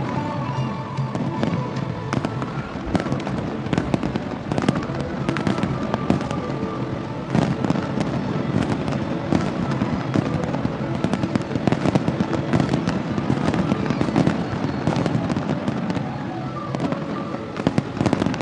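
Fireworks display: a dense, continuous run of bangs and crackles from many shells, with music playing underneath.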